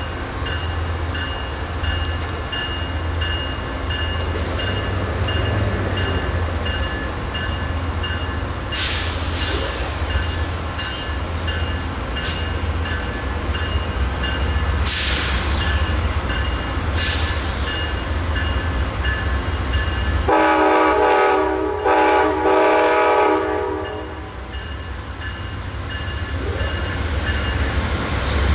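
Amtrak GE P42DC diesel locomotives rumbling steadily as the passenger train departs, with a few short hissing bursts. About twenty seconds in, the locomotive horn sounds in several closely spaced blasts over roughly four seconds, and it starts again right at the end.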